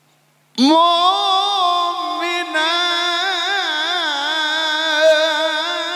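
Male qari reciting the Qur'an in the melodic tilawah style, unaccompanied. One long drawn-out phrase enters about half a second in, held in a high register with wavering ornaments, and is starting to fade at the end.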